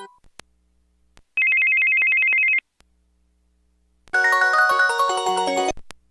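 Samsung SPH-A840 cell phone playing ringtone previews. First a short electronic ring trill of two fast-alternating high tones for about a second, then after a pause a busy polyphonic melodic ringtone for nearly two seconds, with small clicks between them.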